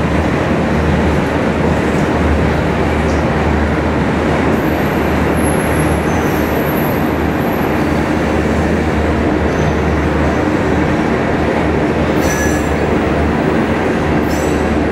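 Freight cars (tank cars, boxcars and covered hoppers) rolling past: a steady, loud rumble of steel wheels on rail. Faint high-pitched wheel squeals come in around the middle, and brief high screeches come twice near the end.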